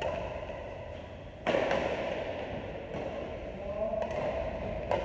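Badminton rally: sharp pocks of rackets striking a shuttlecock, the loudest about one and a half seconds in with a second right after it, and another near the end.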